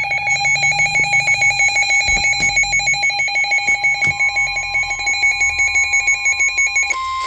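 Emergency alert tones announcing a severe thunderstorm warning: loud, rapidly pulsing electronic beeping that changes near the end to a single steady tone.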